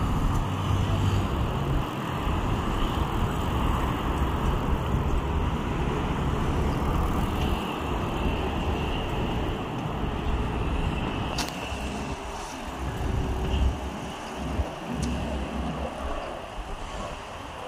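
Steady road traffic on a busy multi-lane avenue: a continuous rumble of passing cars, motorcycles and buses that swells and eases as vehicles go by, with one brief sharp click partway through.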